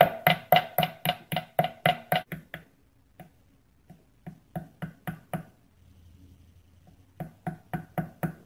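Small hammer tapping rapidly on a brass tube resting on a steel bench-vise anvil, about five blows a second, each with a ringing metallic tone. It comes in three runs with short pauses and a few stray taps between, bending the tube end over a lock nut.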